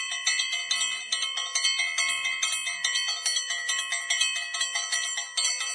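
A set of bells ringing in rapid, even strikes, about four or five a second, with several pitches sounding together.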